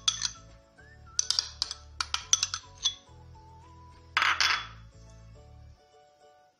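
A metal spoon clinks and taps against a glass mixing bowl several times in the first three seconds while mayonnaise is scooped onto shredded chicken, then gives a short scrape about four seconds in. Background music plays underneath.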